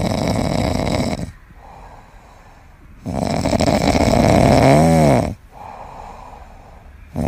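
French bulldog snoring in its sleep: a loud snore at the start and a longer one about three seconds in, with quieter breathing between. The second snore ends with a brief wavering, whistling tone.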